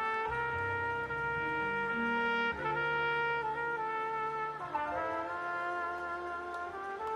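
Solo trumpet playing slow, long held notes over a low bass accompaniment, moving to a new note every two seconds or so.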